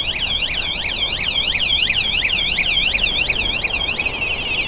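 Scooter motion-sensor alarm (WSDCAM) going off after the scooter is touched: a loud, high electronic siren warbling rapidly up and down, about four to five sweeps a second. Near the end it switches to a faster trilling tone.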